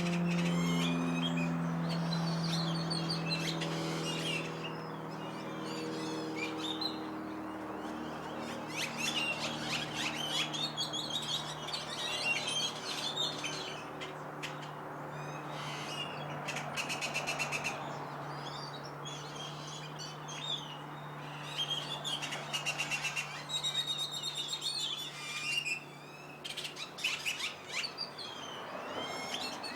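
Many small birds chirping and calling over one another in a backyard tree as the flock comes back to roost. A steady low hum runs underneath, loudest in the first few seconds and then fading.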